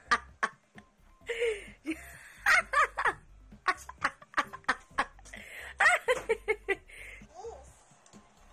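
Laughter in short bursts of chuckling and giggling, fading out near the end.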